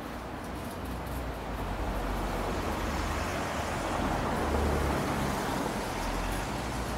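Street traffic noise: a double-decker bus idling at a stop close by while cars pass, the loudest pass about four to five seconds in.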